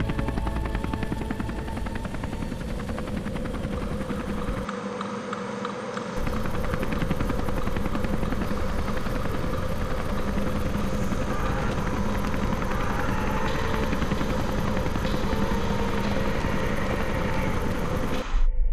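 Military helicopter in flight: rapid, steady rotor chop with a constant engine drone, briefly muffled about five seconds in and cutting off abruptly near the end.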